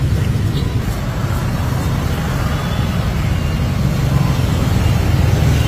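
Steady low rumble of road traffic passing on the street.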